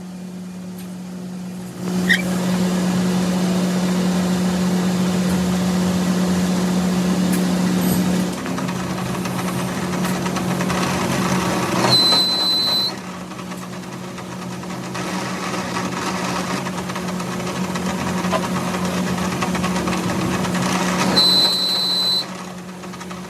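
A workshop machine running steadily with a hum, louder from about two seconds in, with a brief high squeal about halfway through and again near the end.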